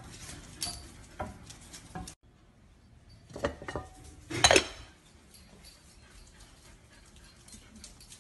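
Ceramic dog-treat jar being opened, its lid clinking against the rim, loudest about four and a half seconds in. A few lighter clicks and knocks come before it.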